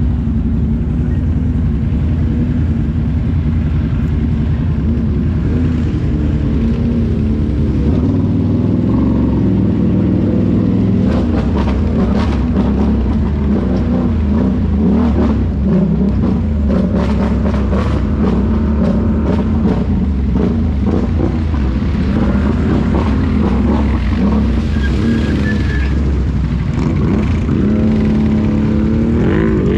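ATV engine running under throttle, its pitch shifting up and down, rising in a rev near the end. Scattered knocks and clatter come in through the middle.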